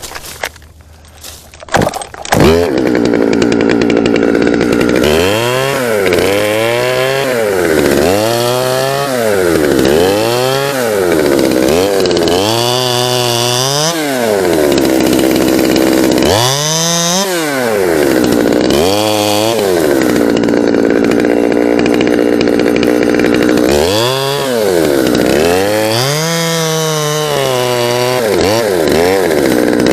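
Chainsaw starting up about two seconds in, then running with repeated revs up and down, about eight times, between lower idling stretches, as it cuts limbs.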